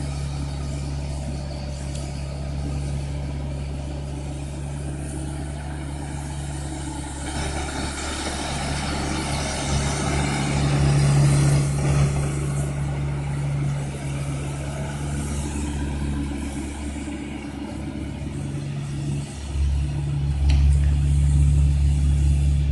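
Engines of heavy road-repair machinery running steadily in a low drone. The noise swells about a third of the way in and rises again near the end as the machines work harder.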